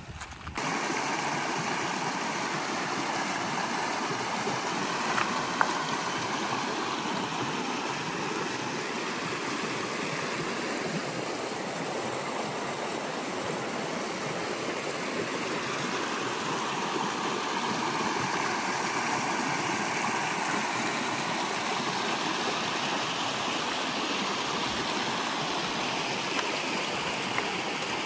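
Shallow stream running over stones: a steady sound of flowing water that starts abruptly about half a second in.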